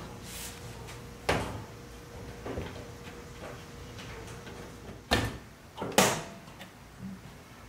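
Metal door of a Smoke Hollow smoker, used as a powder-coat oven, being shut and latched by its handle: a few sharp metal knocks and clicks, the loudest about six seconds in, over a faint steady hum.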